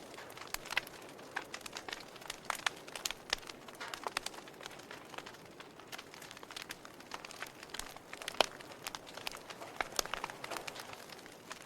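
Wood fire crackling in a fireplace: a soft steady hiss with irregular sharp pops and snaps, one louder pop a little past two-thirds of the way through.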